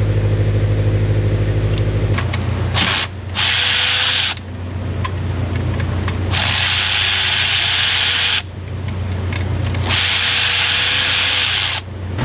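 A hand-held power tool running in four bursts as bolts are backed out of an engine-bay bracket: one brief pull of the trigger, then runs of about one, two and two seconds with short pauses between. A steady low hum runs underneath.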